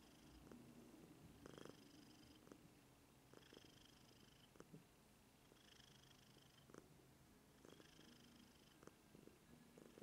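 Maine Coon cat purring faintly and steadily while being stroked, with a faint high note that comes and goes about every two seconds and a few light clicks.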